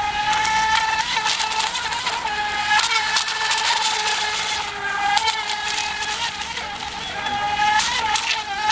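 Radio-controlled speedboat's motor whining at a steady high pitch while the boat runs at speed across the water. The pitch wavers slightly up and down.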